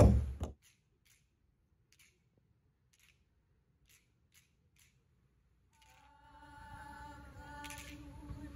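Loud voices and music stop abruptly half a second in, leaving near silence. From about six seconds in, a faint a cappella Hawaiian chant begins, with voices holding steady notes together.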